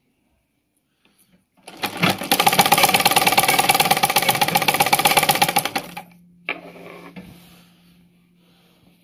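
Sewing machine stitching a seam at speed, a fast even clatter of needle strokes that starts about two seconds in and stops about four seconds later. After that a low steady hum and faint fabric-handling noises continue.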